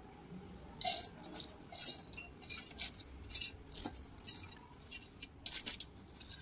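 Handfuls of soaked moong dal scooped from a steel bowl and dropped into a steel mixer-grinder jar: a series of short wet rattles and clinks against the steel, roughly one a second.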